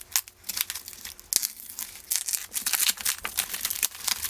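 Packaging being crinkled, rustled and torn as a boxed hitch-mounted bumper is unwrapped: a run of irregular crackles and tearing rustles.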